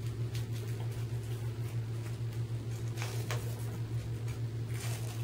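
A steady low electrical hum, with a few faint crackles and clicks of paper tape being pulled and pressed around a gauze dressing on a toe.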